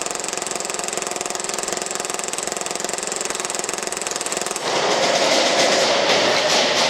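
Action Army AAP-01 gas blowback airsoft pistol firing on full auto: a very fast, even stream of shots lasting about four and a half seconds. Then it stops and a louder, more irregular noise takes over.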